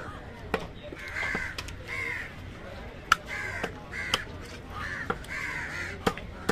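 Crows cawing again and again, mixed with about six sharp knocks of a large knife striking a wooden chopping block as fish is cut, the loudest about three seconds in.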